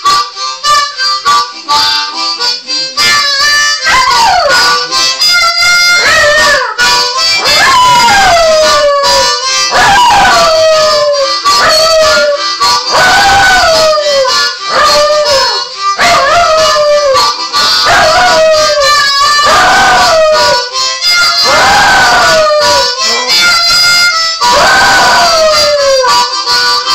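A Jack Russell terrier howling along to blues played on a harmonica: after a few seconds of harmonica alone, the dog gives long howls, one every second or two, each sliding down in pitch, over the harmonica's steady chords.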